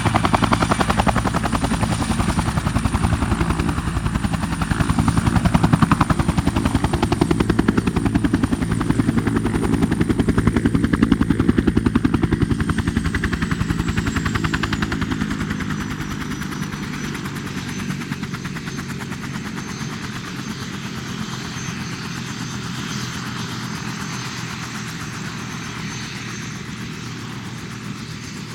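Bell 212 twin-turbine helicopter heard from outside: rotor blade chop over a high turbine whine. About 13 seconds in, the whine slides down in pitch and the whole sound drops quieter as the engines wind back to idle, and it runs on steadily at idle.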